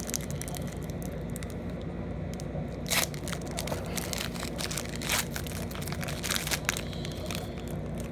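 Foil trading-card pack wrapper being torn open and crinkled by hand, in an irregular run of crackles with louder rips about 3 and 5 seconds in.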